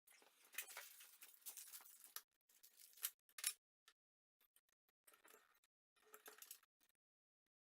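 Faint rustling and clicking from hands handling wiring and plastic printer parts, in three short spells of scraping and crackling with a few sharper clicks.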